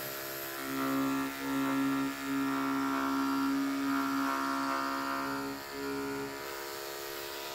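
Corded electric clippers running with a steady hum. From about half a second in until about six seconds, the blade is pushed through long faux fur on a first shaving pass, cutting the long fibers short, and the hum gets louder with a few brief dips. Near the end it settles back to the plain running hum.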